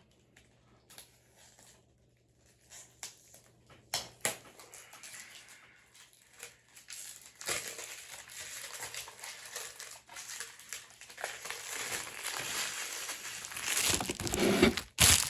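Plastic shrink wrap being torn and peeled off a sealed DVD case. A few light clicks and taps come first, then about halfway through a steady crinkling of plastic starts and grows louder toward the end.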